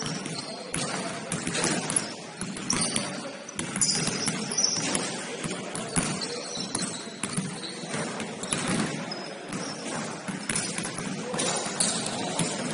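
A basketball game on an indoor court: the ball bouncing on the floor among scattered sharp knocks and brief high squeaks.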